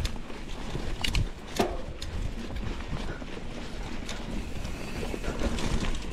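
Mountain bike rolling down a rough dirt trail: wind buffets the microphone over a steady rumble from the tyres, with a few sharp knocks and rattles from the bike over bumps.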